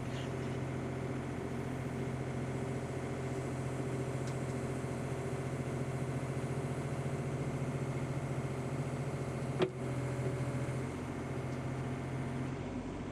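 Case CX36B mini excavator's Yanmar diesel engine idling steadily, with a single sharp knock about ten seconds in.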